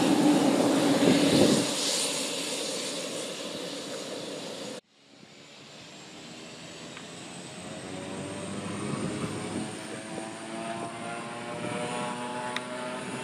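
Single-engine turboprop airplane passing close on the runway, loud and then fading away. After an abrupt cut, another single-engine turboprop comes head-on down the runway, its propeller drone and high turbine whine slowly growing louder.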